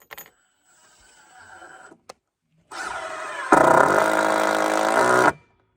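A power drill running under load for about two and a half seconds, most likely driving a screw into the boards of a lumber base. It gets much louder about a second after starting, sags slightly in pitch near the end and stops abruptly.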